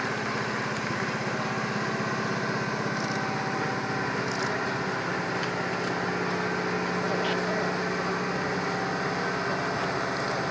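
Crawler crane's diesel engine running steadily while it holds a steel beam aloft on its hoist line; its engine note drops a little about halfway through.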